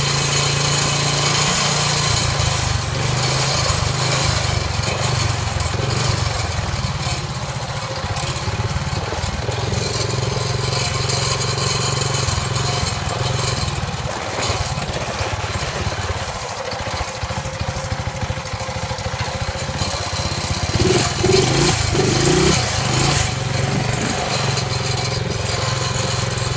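Small Briggs & Stratton engine of a home-built motorbike running steadily while riding, getting louder for a couple of seconds toward the end.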